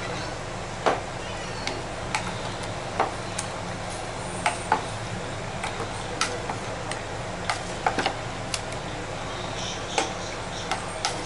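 Chicken pieces being mixed by hand through a thick yogurt marinade in a plastic bowl: irregular sharp wet clicks and small knocks, roughly one or two a second, over a steady background hiss.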